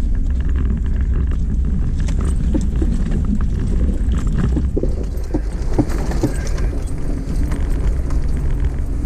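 A 4x4 crawling slowly over a rutted dirt trail: a steady low engine and drivetrain rumble, with knocks, rattles and short squeaks from the body and suspension over the bumps, mostly between about two and seven seconds in.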